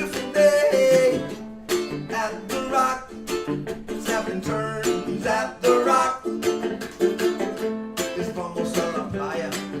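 Live acoustic guitar intro, strummed in a steady rhythm with picked melody notes over it.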